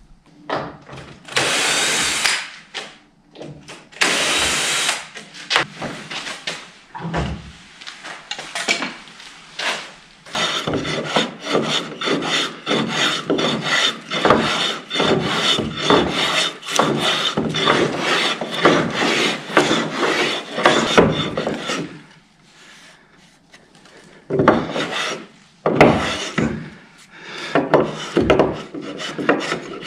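A hand tool worked over wood in repeated strokes: two long strokes at the start, then a fast run of short strokes for about ten seconds, then a few more separate strokes near the end.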